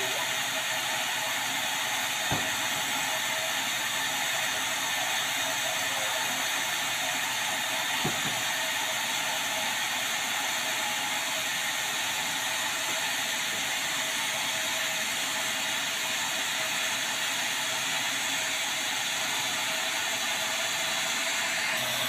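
Band sawmill running steadily with its blade turning free, not yet in the wood: a steady whir. Two brief knocks, about two and eight seconds in, as the heavy baulk is shifted on the carriage.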